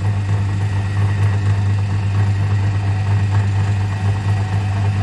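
A steady low hum that does not change.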